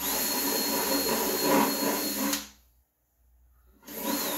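Cordless drill running and boring into a plastic drum lid, widening a hole, with a steady high motor whine. It runs for about two and a half seconds, stops, and starts again near the end.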